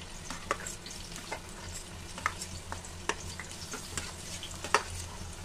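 Chopped onion sizzling as it goes into hot oil in an iron kadhai, with a few sharp clicks and scrapes of a knife pushing the pieces off a steel plate.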